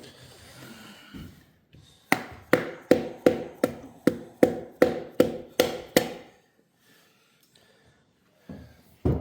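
A hammer tapping on a metal part of a small-block Chevy 350 being torn down: about eleven sharp, ringing taps at roughly two and a half a second, which then stop, with a couple of knocks near the end.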